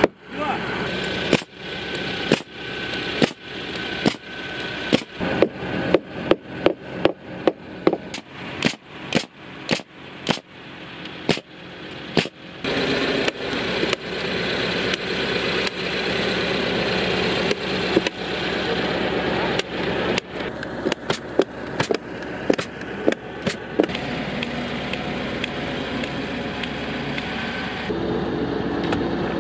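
Hammering on timber: a long run of sharp blows, about two a second, for roughly the first twelve seconds. Then a steady engine runs, with a few more sharp clacks in the middle.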